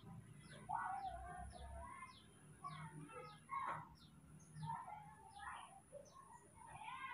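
Birds chirping: a steady run of short, high, falling chirps about two a second, with louder irregular calls now and then, strongest about a second in and near the end.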